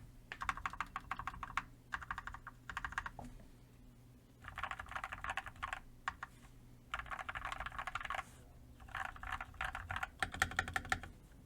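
Custom 87-key mechanical keyboard with lubed and filmed Gateron Red V2 linear switches and PBT keycaps being typed on fast, in runs of rapid keystrokes a second or two long with short pauses between them.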